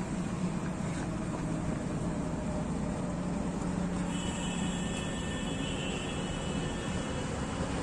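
Steady outdoor city background rumble with a low hum, typical of distant road traffic. About four seconds in, a faint high-pitched tone comes in for a couple of seconds.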